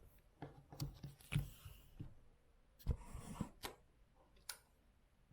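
A few quiet, scattered clicks and small smacking sounds: a feeding spoon tapping a bowl and a baby eating puree from it.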